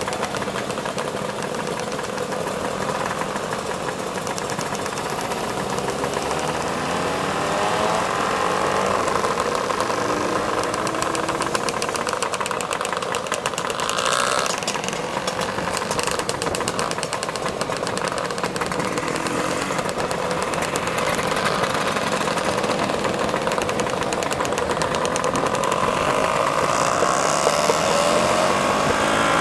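Scooter engines on a group ride: a steady engine hum from the scooter being ridden, with other scooters' engines rising and falling in pitch as they speed up and slow down.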